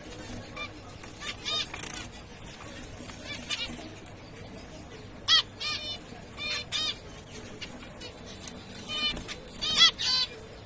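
Zebra finch calls: short, sharp calls repeated at irregular intervals, the loudest about halfway through and near the end.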